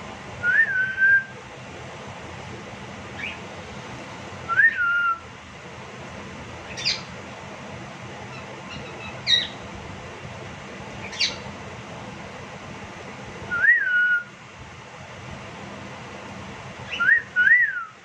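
Male cockatiel calling for attention: short whistled notes that rise and fall, mixed with sharp high chirps that sweep steeply down, one every few seconds, with a quick double whistle near the end.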